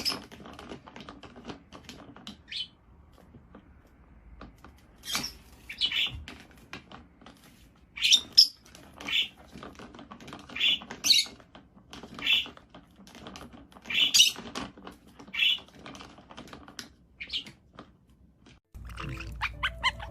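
A parrot giving short, sharp squawks and chirps at irregular intervals, with faint clicks and knocks in between. Music comes back in near the end.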